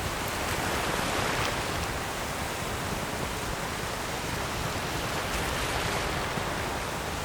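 Ocean waves washing on a shore: a continuous rushing surf with slow, gentle swells in loudness.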